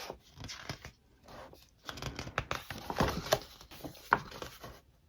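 Paper and cardboard rustling, with irregular taps and clicks, as a large photo book is handled and opened.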